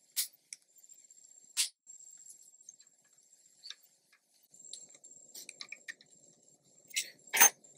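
Scattered small clicks and taps of hand tools against a mountain bike's stem and headset top cap, a few single sharp clicks with quiet between them, the loudest pair near the end.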